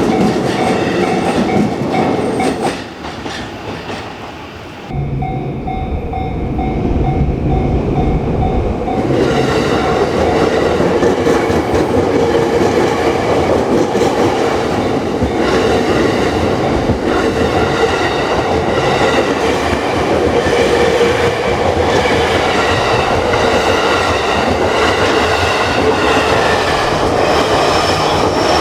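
Japanese railway level-crossing warning bell ringing its repeated clang while an electric train passes through the crossing.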